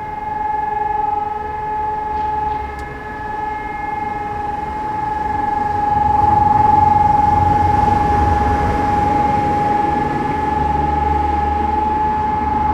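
Hörmann ECN electronic civil-defence siren sounding the steady, single-pitch continuous tone (Dauerton) of a siren test, with no rising and falling. A low rumble builds underneath about halfway through.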